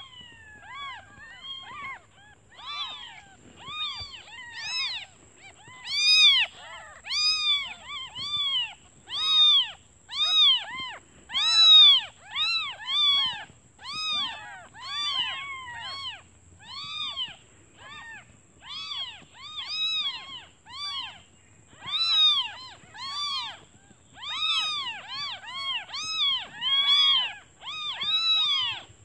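Newborn kittens mewing, short high-pitched calls one after another at nearly two a second. They are hungry kittens calling for their mother.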